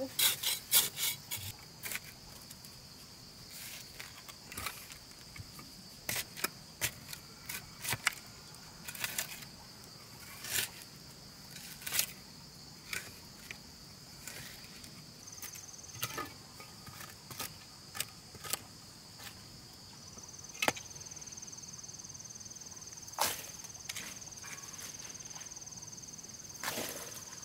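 Insects buzzing in a steady high drone, with a second, slightly higher insect tone joining briefly past the middle and again for the last several seconds. Over it, irregular sharp wooden knocks and taps, several close together at the start, then one every second or two.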